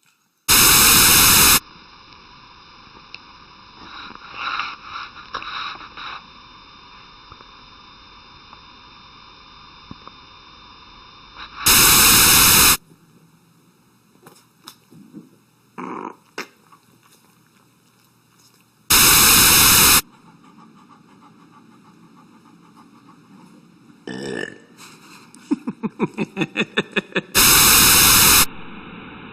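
Dogs burping in a string of short clips, separated by four loud, identical one-second bursts of noise. Near the end comes a quick run of regular pulses.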